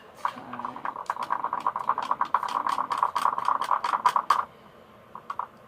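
A mixing bowl sounding under vigorous stirring: a fast run of scraping strokes with a steady ringing tone, lasting about four seconds and then stopping, with a couple of faint taps just after.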